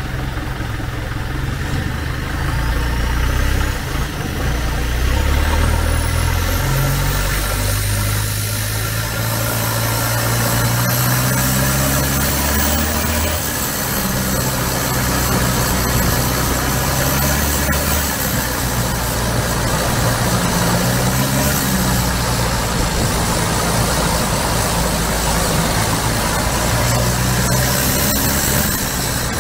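An engine running steadily, its low pitch shifting up and down every second or two.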